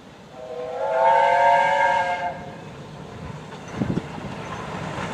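A train horn gives one blast of about two seconds, several steady notes sounding together as a chord. A brief low thud follows about four seconds in, over the train's low running rumble.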